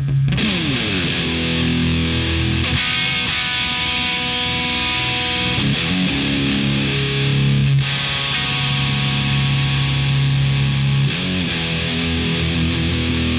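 Electric guitar played through a Madbean Upper Decker, a very high gain amp emulator pedal, giving a heavily distorted tone. Held chords ring out and change every two to three seconds.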